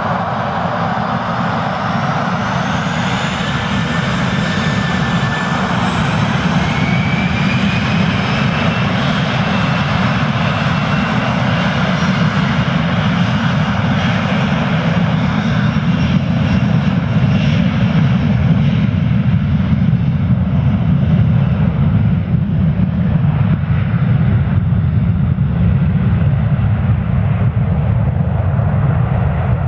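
A Boeing 737 Classic's CFM56-3 turbofans spooling up to takeoff thrust on the takeoff roll. A high fan whine rises in pitch over the first several seconds above a loud, deep, steady rumble. Over the last third the whine fades, leaving mostly the low rumble as the jet departs.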